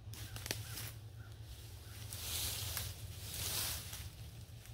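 Dry leaves and pine needles rustling and crunching under footsteps and under a dead branch being pulled across the forest floor. There are a few light clicks near the start and two longer swells of rustling in the second half.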